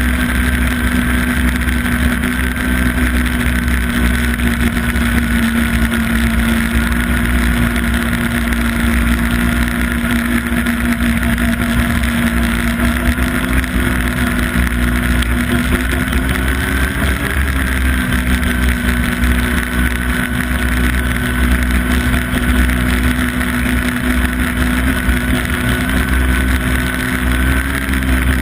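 Yamaha Apex snowmobile's four-stroke four-cylinder engine running steadily at cruising speed, its pitch rising briefly a little past halfway through.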